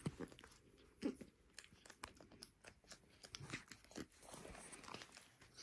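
Near silence with faint, scattered short clicks and small rustles close to the microphone.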